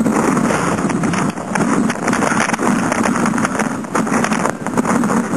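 Strong wind buffeting the camera microphone: loud, rough rumbling noise that swells and eases in gusts.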